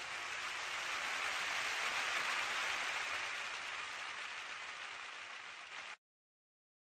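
A steady hiss of noise like rain, fading slightly, that cuts off suddenly about six seconds in and is followed by silence.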